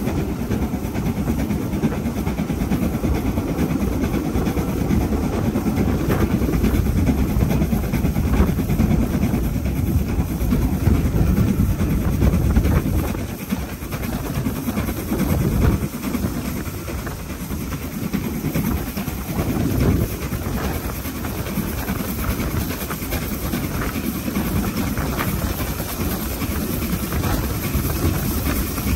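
Steam-hauled passenger train behind LMS Black 5 locomotive 44806 running along the line, heard from aboard: a steady rumble and clatter of the carriage wheels on the rails. It becomes a little quieter about halfway through.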